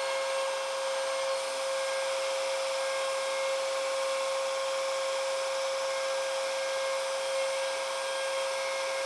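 Small high-speed rotary spindle with a fine end mill running steadily: a constant high-pitched motor whine with no change in load.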